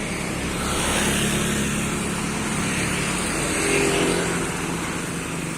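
Street traffic with a motor vehicle's engine running close by, getting louder about a second in and peaking near four seconds.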